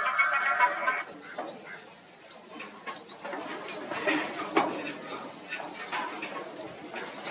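Background music ends about a second in, leaving insects chirping steadily, with scattered rustles and clicks.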